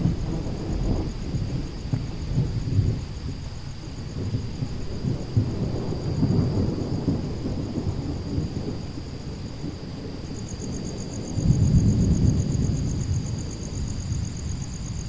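Thunder rumbling in rolling waves, with a louder peal about eleven seconds in.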